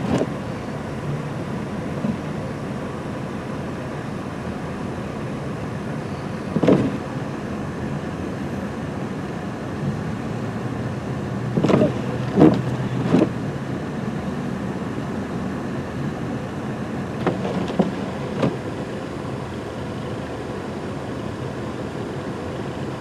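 Road vehicles running in a steady rumble, with a few short knocks: one about a third of the way in, three close together around the middle, and two more later.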